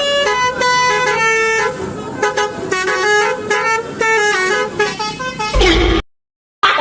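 Multi-tone 'telolet' bus horn playing a tune of stepped notes, one note after another and sometimes two together. It cuts off abruptly about six seconds in.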